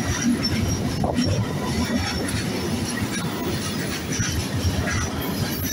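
Intermodal freight train of pocket wagons loaded with lorry trailers rolling past close by: a steady rumble of wagon wheels on the rails, with short high-pitched wheel squeals every second or so.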